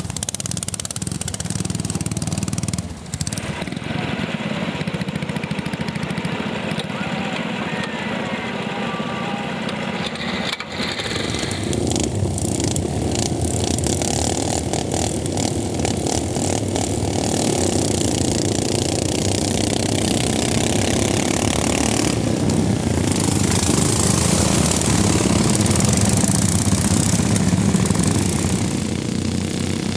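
Several racing lawnmowers' small petrol engines running together, revving as the mowers race.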